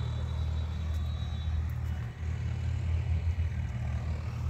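A steady low rumble that swells and eases, with a faint thin high tone in the first second and a half.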